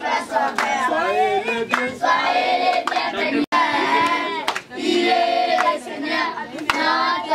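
A group of voices singing a song, with hand claps keeping time. The sound cuts out for an instant about halfway through.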